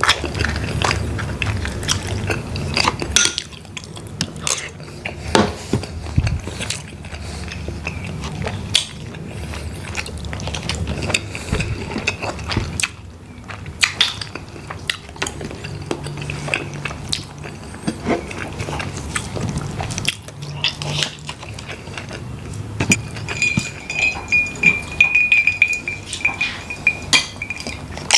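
Close-up eating and handling of a seafood meal: many short clinks and clicks of crab and prawn shells and utensils against a plate, with eating noises between. A thin steady high tone sounds for the last few seconds.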